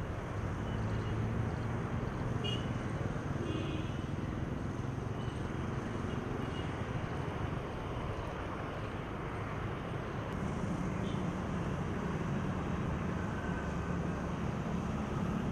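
Steady outdoor city traffic noise: a continuous low rumble of distant road traffic, with a few faint, brief high sounds.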